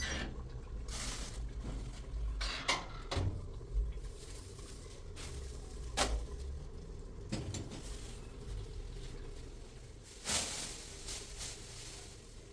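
Scattered knocks and clatters of objects being handled, a handful of sharp hits spaced irregularly over a low background rumble.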